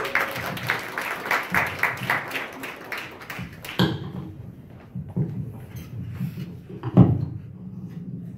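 Scattered applause from a small audience, the individual claps audible, ending about four seconds in. Then microphone handling on its stand, with light knocks and a heavy thump about seven seconds in.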